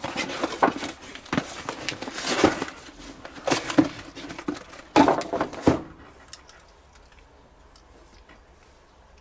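Cardboard packaging being handled and opened by hand: a string of rustles, taps and sharp clicks for about six seconds.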